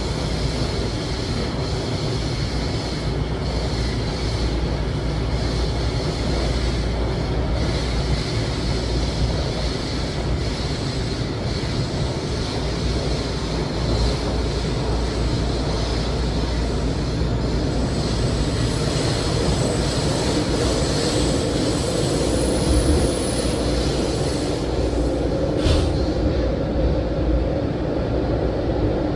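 LIRR M9 electric multiple-unit train running, heard from inside the car: a steady rumble of wheels on rail with running hiss. A faint high whine comes in about two-thirds of the way through, then a sharp click, after which the sound turns duller with a low hum.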